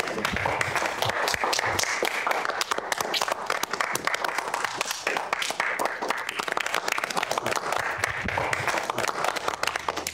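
A small group of people applauding, many hands clapping steadily.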